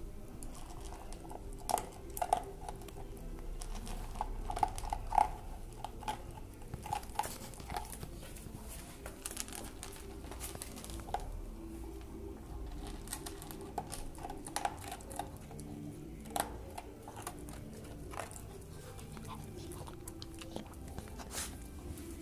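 English cocker spaniel eating from a plastic bowl: irregular chewing and crunching with many sharp clicks, busiest in the first half.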